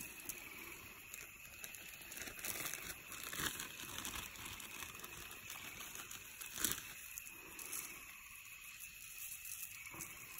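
Aluminium foil crinkling and rustling as it is handled and folded, in irregular crackles, with one sharper crinkle about two-thirds of the way through.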